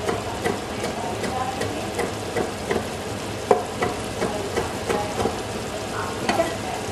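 Knife chopping fresh coriander on a wooden cutting board in irregular sharp taps, about two or three a second, over a steady sizzle from the kabab curry frying in the pot.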